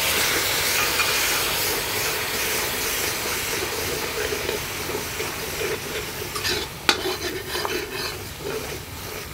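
Yogurt sizzling as it hits hot oil and spices in a karahi, stirred with a metal spatula. The hiss is loudest at first and slowly dies down, with a few scrapes and clinks of the spatula against the pan in the second half.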